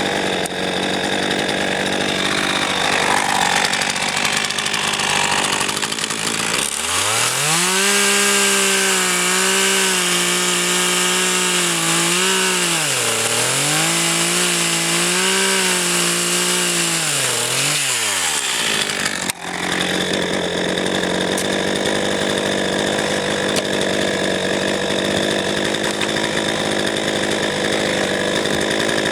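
RedMax GZ400 two-stroke chainsaw running hard, cutting oak firewood logs. A clear engine tone climbs, dips twice as the chain loads up in the cut, then drops away, with a brief sharp knock about two-thirds of the way in before the saw runs on steadily.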